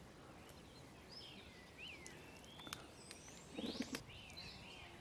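Faint birdsong: a scatter of short chirps and whistled glides, with a brief lower-pitched sound about three and a half seconds in.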